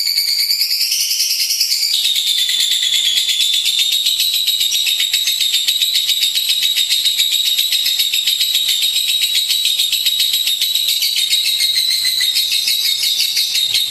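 Lovebird singing one long, unbroken, high-pitched chattering trill that drops slightly in pitch about two seconds in.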